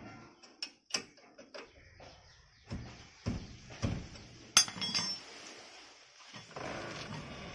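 Metal hand tools and parts clinking and knocking against each other as they are handled, with one sharp clank about four and a half seconds in and a brief scraping noise near the end.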